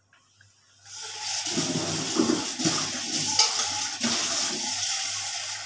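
Water running from a tap into a container, starting suddenly about a second in and going on steadily.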